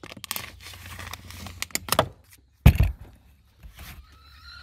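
Plastic wrapping of dog-food rolls crinkling and rustling as they are handled at a metal bin, then one loud thud about two and a half seconds in.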